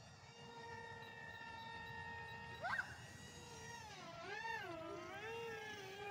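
Electric motor of a toy RC jet plane whining in flight: a steady high-pitched whine that sways up and down in pitch in the last couple of seconds as the plane manoeuvres. A brief sharp rising squeak about two and a half seconds in is the loudest sound.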